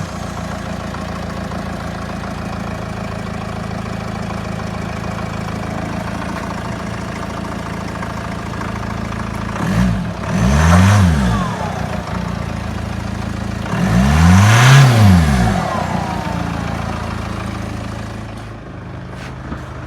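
2008 Mercedes A180 CDI's four-cylinder diesel idling steadily just after start-up, revved twice, about ten and fourteen seconds in, the pitch rising and falling back each time. It makes a weird noise that the owner cannot place and suspects may come from the engine or from the CVT running short of oil.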